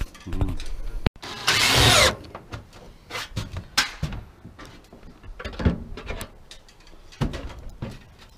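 Steel metal-tile ridge pieces being handled and shifted on the roof: scattered knocks and clatters, with one loud, short scrape about one and a half seconds in.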